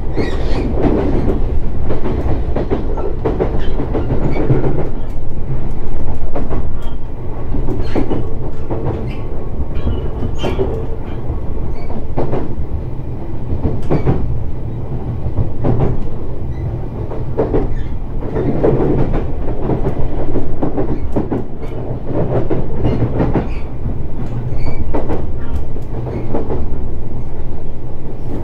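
Shinano Railway SR1 series electric multiple unit running on the line: a steady low rumble from the wheels and bogies, with irregular clicks as the wheels pass over rail joints.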